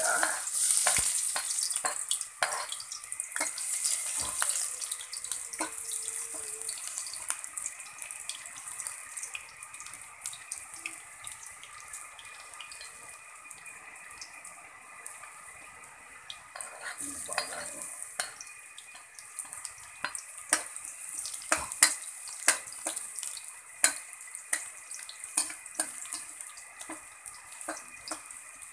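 Chopped aromatics dropped into hot cooking oil in an aluminium wok, sizzling loudest in the first few seconds and then frying steadily. Sharp clinks and scrapes of a metal spatula stirring them come through the frying, the loudest about two-thirds of the way through.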